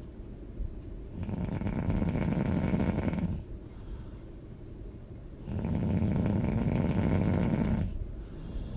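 A person snoring: two long snores about four seconds apart, with quieter breathing between them.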